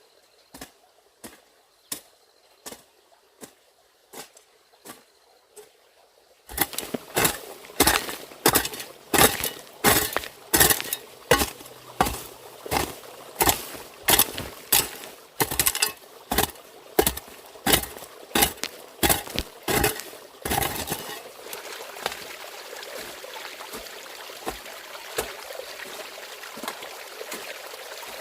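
A steady run of sharp knocks or strikes, faint at first, then louder and quicker from about six seconds in at roughly one and a half a second. They stop at about twenty seconds, and a steady rush of running water takes over.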